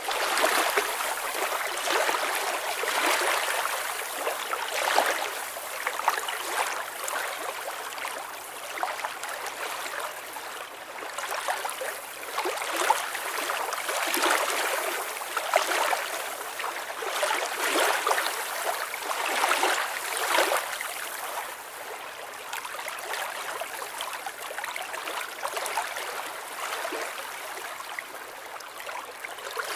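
Lake water lapping and splashing at the shore, rising in irregular swells every two or three seconds.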